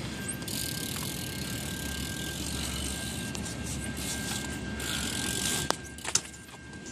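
Bicycle rolling over pavement with a steady tyre and riding noise, then a couple of sharp knocks a little before the end.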